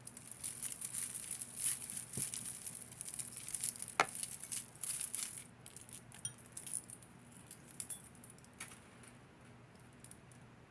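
Tangled metal jewelry chains jingling and clinking as they are handled and pulled apart. The clinking is busy for about the first five seconds, with one sharper click about four seconds in, then thins to occasional small clinks.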